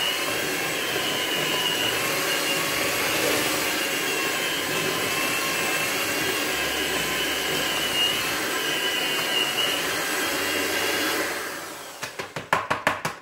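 Electric hand mixer running steadily, its beaters working a thick cake batter. About 11 seconds in it is switched off and winds down, followed by a quick run of knocks.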